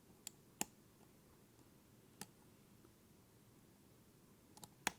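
Faint, scattered small metallic clicks of a lock pick working the wafers of an Illinois Duo wafer cam lock: two early ticks, one a little after two seconds, and two close together near the end.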